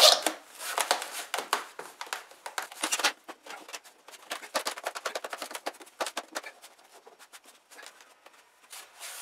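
Plastic Bushwacker Trail Armor rocker panel cover being slid and pressed into place by hand against a pickup's rocker: quick clicks, scrapes and rubbing, busiest in the first few seconds and sparser after.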